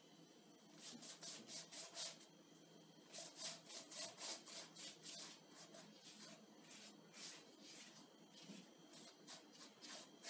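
Silicone pastry brush spreading melted butter over a raw sheet of börek dough in a round metal tray: soft, quick brushing strokes, several a second, in runs with short pauses, louder in the first half.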